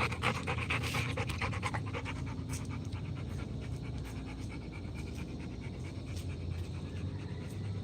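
Rottweiler panting in quick, even breaths, a little louder in the first two seconds.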